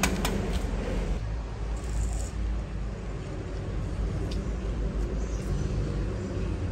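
Steady low outdoor rumble, with the last of a run of sharp, evenly spaced knocks at the very start.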